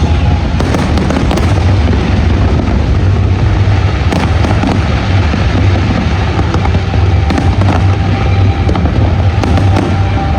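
Fireworks going off in a dense barrage: rapid bangs and crackling bursts over a continuous low rumble, with show music faintly underneath near the end.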